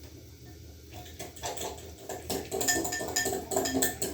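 Kitchen clatter of dishes and utensils: a quick run of clinks and knocks that starts about a second in and grows louder.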